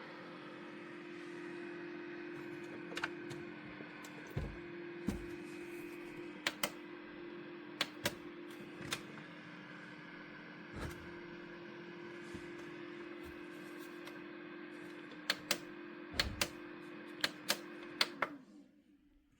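Small electric dehumidifier running with a steady hum and a held low tone, with scattered sharp clicks over it. The hum cuts off about a second before the end.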